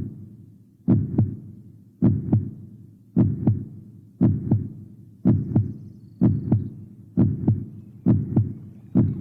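Heartbeat sound effect: paired low lub-dub thumps about once a second, nine beats in all, coming slightly quicker toward the end.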